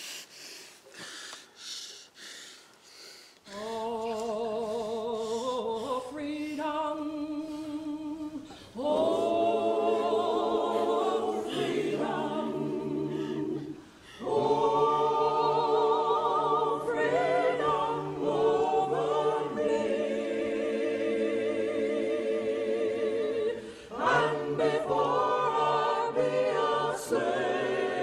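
Choir singing slow, held chords with vibrato in several phrases separated by short breaks, entering about three and a half seconds in after a few faint, evenly spaced pulses.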